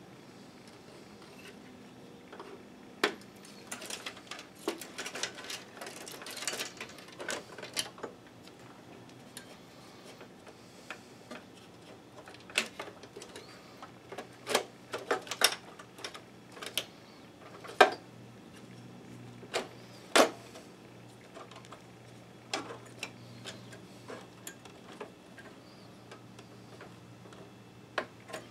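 Scattered clicks and light taps of parts being handled as a projector's mainboard is fitted back into its chassis. They come in a quick cluster about three to eight seconds in and again around fifteen seconds, with a few sharper single clicks later.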